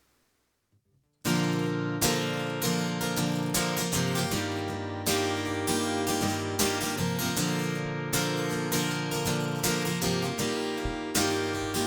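About a second of near silence, then an acoustic guitar strumming chords in a steady rhythm, playing a song's introduction before the singing comes in.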